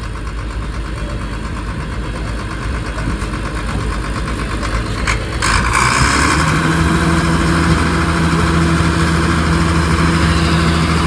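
Car engine running. About five seconds in there is a click, and then the engine gets louder and holds a steady pitch.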